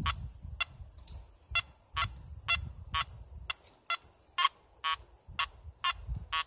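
Makro Multi Kruzer metal detector giving short, high beeps about twice a second as its coil is swept over the ground in 2-tone mode with extra underground depth switched on, over a low rumble.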